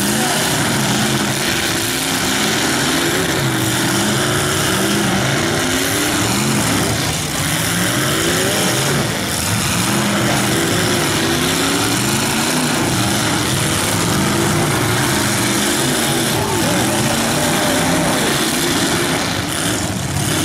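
Several demolition derby cars' engines running at once, revving up and down in a loud, continuous din.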